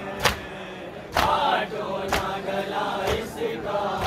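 A group of mourners chanting a lament in unison, with a sharp slap-like beat about once a second keeping time.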